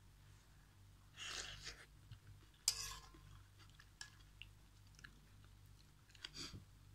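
Close-up eating sounds of instant noodles with vegetables: two short bursts of chewing, and a sharp metal clink with a brief ring as the spoon strikes the aluminium wok, followed by a few light spoon taps.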